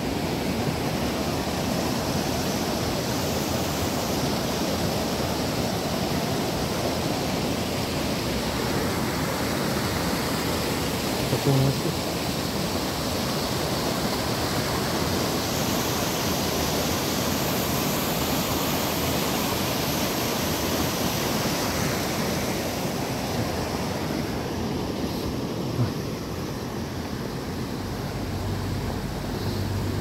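River water rushing steadily, a noisy sound, with two brief thumps partway through.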